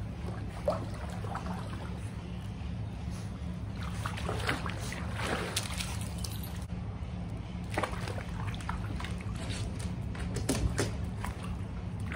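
Kayak paddle dipping and stroking through swimming-pool water, with irregular sloshing splashes and drips over a steady low hum.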